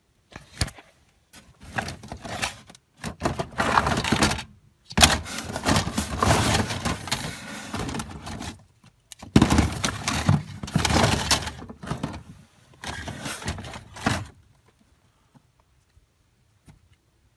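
Irregular knocking, scraping and rattling of hard objects being handled, in stretches of a second or two, stopping about 14 seconds in.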